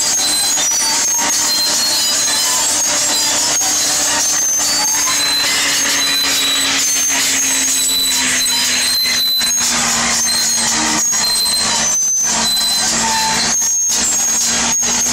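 FiatAllis AD20B crawler dozer with an Iveco diesel engine working hard while its rear ripper tears a metre deep through tough, rocky ground. The engine note sinks slowly in pitch under the load. Short, high squeals keep breaking out over the loud, steady clatter and rumble.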